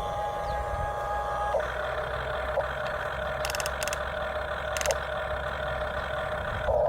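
Toy construction vehicle running with a steady engine-like hum on a held tone that shifts in pitch about a second and a half in, with a few light clicks.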